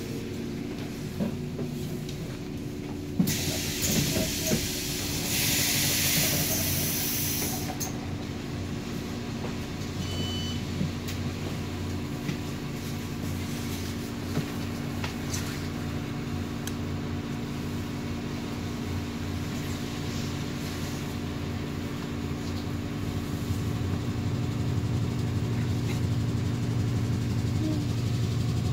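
City bus heard from inside the cabin: a steady engine hum, with a loud hiss of released compressed air lasting a few seconds near the start. The engine grows louder near the end.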